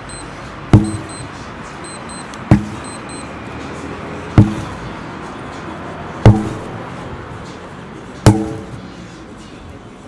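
Sledgehammer blows: five heavy strikes about every two seconds, each a sharp thud with a brief ringing tail.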